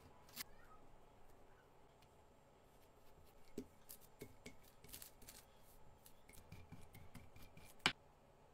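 Quiet rubbing and scattered light clicks as dough is worked by hand: a small roller pressed over floured dough on baking paper, then a pizza-cutter wheel. One sharp click near the end.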